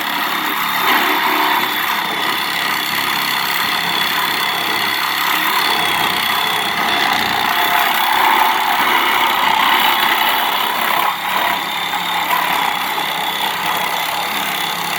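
Heavy machine's diesel engine working hard with a steady high hydraulic whine, as the machine pulls apart a scrapped van.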